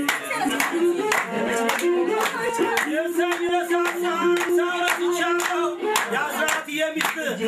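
Group singing over steady rhythmic hand clapping, about two claps a second, with one long held note from about three seconds in until about six.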